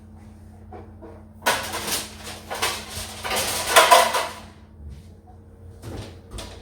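An oven door and a metal baking pan handled: a few seconds of scraping and clattering as the pan goes in, then two short knocks near the end.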